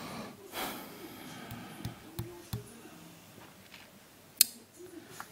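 Hands handling the plastic gearbox block of an LGB model locomotive: a few faint small clicks and one sharper click about four and a half seconds in, with a breath near the start.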